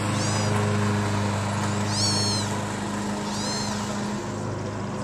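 Kitten meowing three times: short, high-pitched calls that rise and fall. Under them runs a steady low engine-like hum, which drops away about four seconds in.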